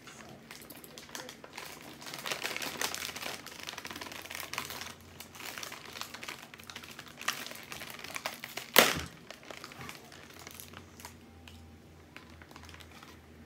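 Plastic wrapper of a Chips Ahoy cookie package crinkling as it is handled and opened, with one sharp, loud crackle about nine seconds in.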